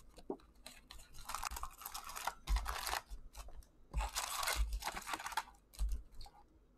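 Cardboard hockey card hobby box being opened and its foil-wrapped card packs rustling and crinkling as they are handled and stacked out of the box, in irregular bursts with a few low thumps.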